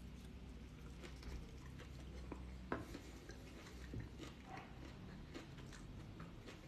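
Faint close-mouthed chewing of a mouthful of bean and lettuce salad, with scattered small wet mouth clicks and a slightly sharper click a little before the three-second mark.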